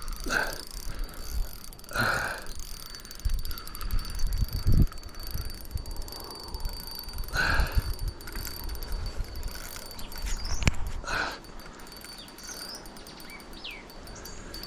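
Fishing reel buzzing in several short bursts, about half a second each, while a hooked trout is played on the line.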